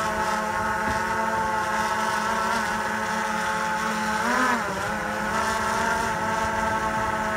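Quadcopter drone's propellers buzzing steadily as it climbs carrying a bait fish on a line; about four seconds in the pitch briefly swings up and back down as the motors change speed.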